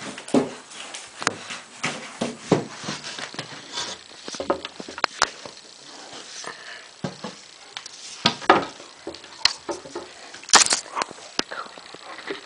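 Old English Sheepdog sniffing and snuffling in short, irregular bursts as it noses a lemon along a tiled floor, with scattered sharp clicks among them; one loud snort-like burst comes near the end.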